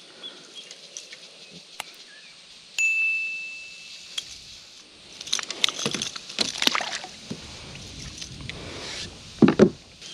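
A single bright bell-like ding about three seconds in, one clear tone ringing out and dying away over about a second. It is followed by a run of sharp clicks and rattles of handled fishing gear, and two loud knocks near the end.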